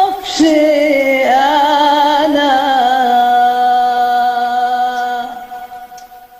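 A singer's voice in Egyptian tarab style holding a long final note with a wide vibrato. The pitch dips once about a second in, then the note is sustained and fades out near the end.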